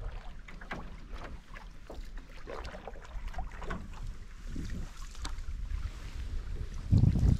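Canoe being paddled on open water: small splashes and drips from paddle strokes and water lapping at the hull, over a low wind rumble. Near the end a gust of wind buffets the microphone loudly.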